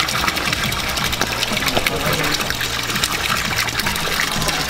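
Spring water pouring from a small pipe and splashing steadily into a stone pool.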